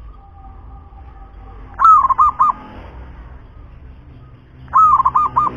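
Zebra dove (perkutut) cooing: two phrases about three seconds apart, each a longer opening note followed by three quick short coos.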